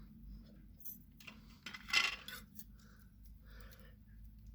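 Light metallic clinks and small handling rattles of metal parts being moved about, with one sharper clink about two seconds in.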